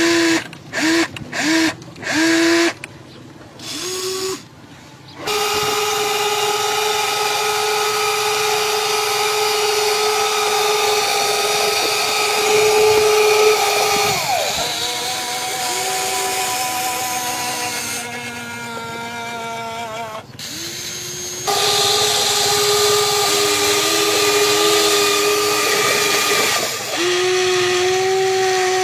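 Small electric motors of a toy RC excavator whining as it drives its tracks and moves its arm. Several short start-stop bursts come in the first couple of seconds. After that it runs in long steady stretches, with a few brief stops where the pitch changes.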